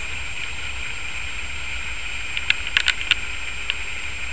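Steady outdoor background hiss and low rumble, with a quick cluster of sharp clicks a little past halfway and one more click near the end.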